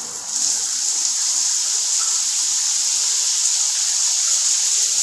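Water spraying from a shower fitting: a steady hiss that swells up just after the start and then holds.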